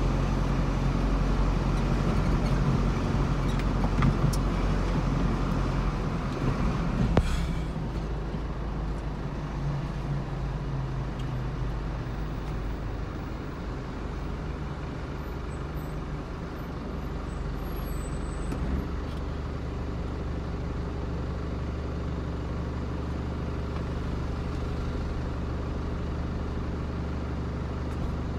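Car cabin sound: road and tyre noise while driving slowly. After a sharp click about seven seconds in, the noise settles into a steady low engine hum as the car sits stopped in traffic.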